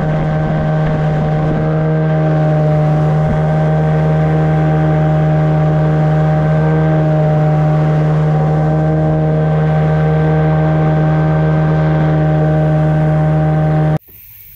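Yamaha outboard motor with a water-jet unit running at a steady cruising speed on a river boat, its pitch constant. It cuts off abruptly near the end.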